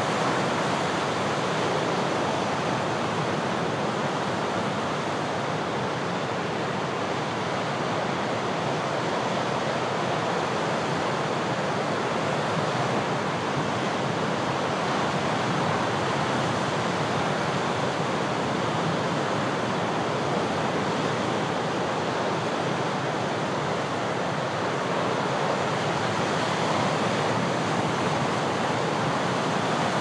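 Ocean waves breaking on the shore with a very strong breeze blowing in off the sea: a continuous rush of surf that swells and eases only slightly.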